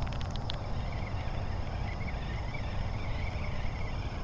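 Fishing reel retrieving a crankbait: a few sharp clicks at the start, then a faint wavering whine from the reel as it is cranked, over a steady low rumble.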